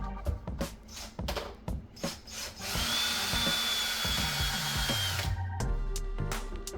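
Cordless drill running steadily for about two and a half seconds in the middle, its motor whine held level as it backs out a screw. Background music plays underneath.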